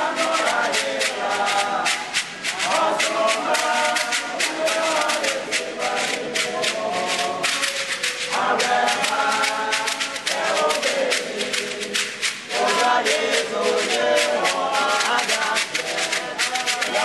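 A group of male voices singing a chant-like hymn together, over a fast, steady beat of shaken beaded calabash gourd rattles.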